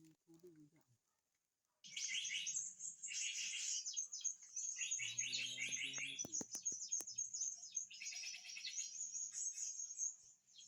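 Many small birds chirping and twittering together in a dense, continuous chorus over a steady high-pitched buzz, starting abruptly about two seconds in.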